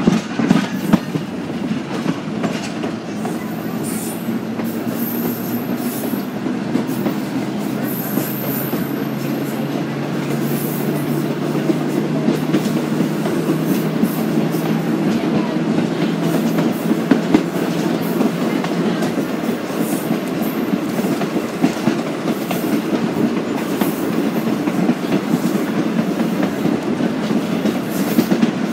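A train running along the track, a steady rumble with scattered clicks that grows gradually louder.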